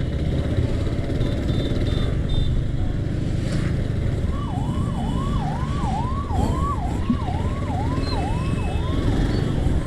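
Busy city street traffic running steadily. About four seconds in, a siren starts up, a fast repeating swooping tone about twice a second, fading near the end.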